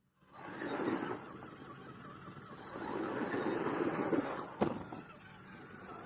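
Small electric 1:12 scale RC 4x4 crawler driving over rock: a thin high motor whine with the tyres and chassis grinding and crunching on stone, swelling twice, and one sharp knock about four and a half seconds in.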